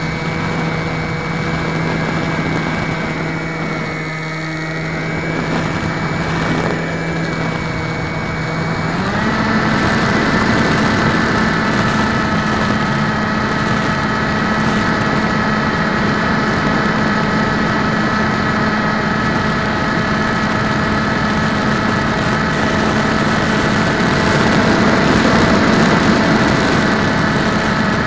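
Motor and propeller of an RC Floater Jet model plane, recorded by its onboard camera: a steady whine over airflow rush. About nine seconds in the pitch steps up and holds higher as the motor speeds up.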